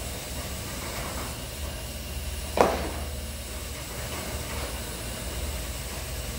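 Garage door opener running as the sectional door rises, a steady low hum, with one sharp thump about two and a half seconds in.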